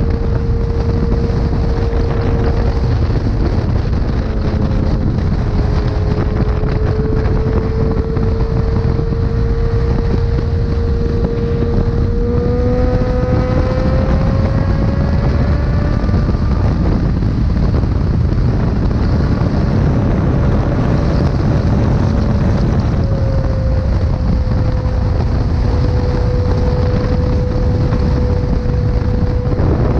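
Motorcycle engine cruising at speed under heavy wind buffeting on the microphone. The engine note climbs gradually about halfway through as the bike accelerates, then holds steady again.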